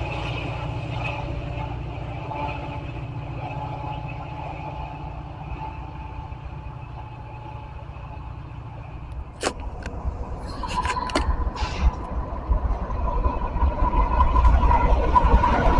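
Metra diesel passenger locomotive running steadily as the train pulls away, its low engine hum fading slowly. After a few sharp clicks about nine seconds in, a louder low rumble with a steady high tone takes over and grows toward the end.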